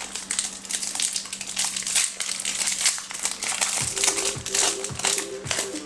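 Foil trading-card pack crinkling as it is torn open and peeled back by hand, a run of irregular crackles. Faint background music with a soft beat comes in about four seconds in.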